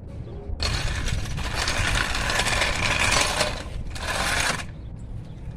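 A socket ratchet clicking fast as a wheel lug nut is spun off: one long run of about three seconds, then a short one.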